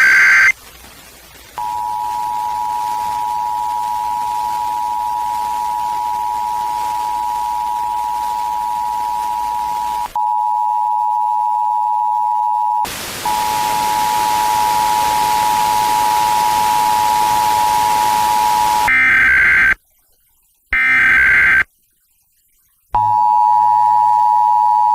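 Emergency Alert System attention signal heard over FM radio: the steady two-tone alert (853 and 960 Hz) sounding on several stations in turn as the band is tuned, with more hiss on the weaker ones. It opens with a short burst of the screeching SAME digital data tones, and about two-thirds of the way through two more data bursts come with silence between them before the two-tone returns.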